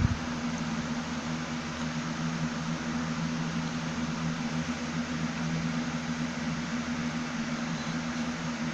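Steady background hum and hiss of a running motor, like a fan, with two low tones held throughout. One light knock sounds right at the start.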